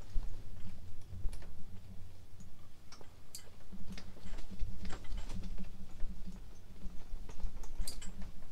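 Wind buffeting an insulated ice-fishing tent: a low rumble that swells and fades in gusts, with scattered sharp clicks and ticks.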